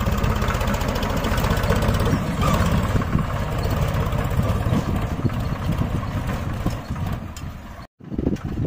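Heavy diesel engine running steadily with a rapid low pulsing. It cuts out abruptly for a moment near the end and comes back.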